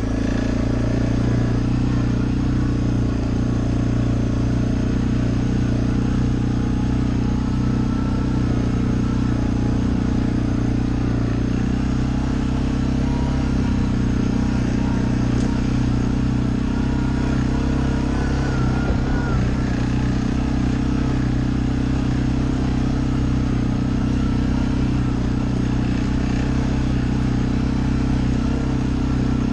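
Suzuki ATV engine running steadily as the quad rides along a dirt trail.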